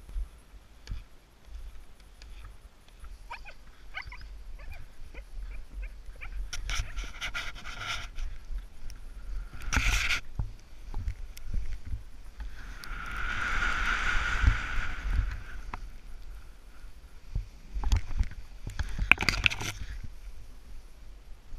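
Wind rumbling on a helmet-mounted camera's microphone, with crunching and scraping of boots and snowboard on snow. The scraping comes in several louder bursts, with one longer swell of it around the middle.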